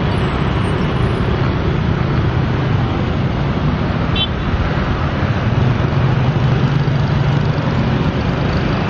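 Boeing 737 jet engines running at taxi power close by: a steady, loud rush with a low hum underneath that swells a little midway.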